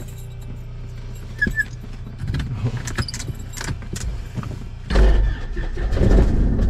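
Cold start of a Cessna 172S's Lycoming four-cylinder engine: a couple of seconds of starter cranking with irregular clicks and knocks, then the engine catches about five seconds in and keeps running.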